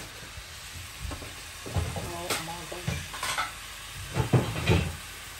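Chopped vegetables (onion, carrot, peas, celery) frying in a pan with a steady sizzle while being stirred, with a few louder scrapes of the utensil against the pan partway through.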